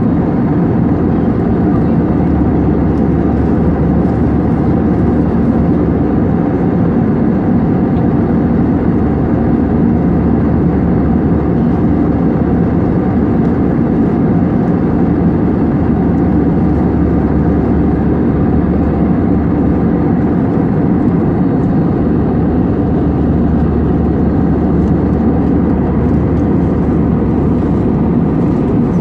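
Steady cabin noise of an Airbus A320 in flight: an even, unchanging rush of engine and airflow noise, heaviest in the low range.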